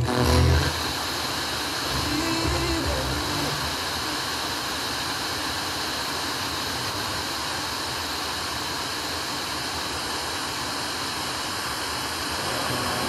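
FM radio receiver tuned between stations: a steady hiss of interstation static as the dial is swept up the band, with a faint snatch of station audio breaking through about two to three seconds in.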